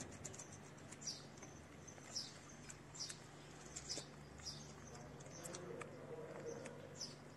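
Cats eating close by, their chewing on dry kibble making small crisp clicks. A small bird chirps about once a second in the background with short high calls.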